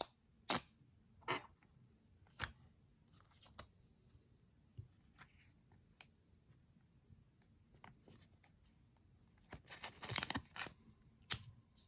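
Packaging being unwrapped by hand: scattered sharp clicks and short crinkling, tearing rustles, with one loud click about half a second in and a denser run of crinkles about ten seconds in.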